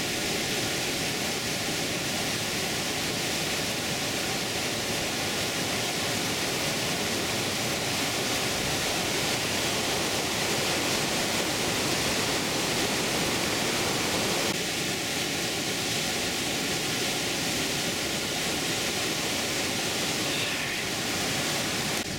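Clear Creek, a Rocky Mountain stream running high, rushing as whitewater over boulders in a steady, unbroken rush of water.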